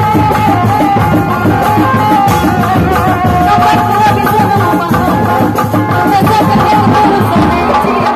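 Live Sundanese reak ensemble music: fast, dense drumming under a held, wavering melody line.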